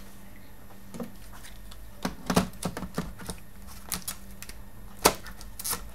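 Plastic parts on the underside of a laptop being pressed and clicked back into place by hand: a scattered series of light clicks and taps, the sharpest near the end.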